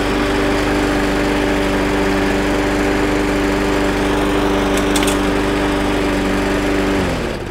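Briggs and Stratton Classic single-cylinder four-stroke lawnmower engine running at a steady speed, then slowing and dying away about seven seconds in. The owner puts the stall down to the engine still being cold and needing another prime.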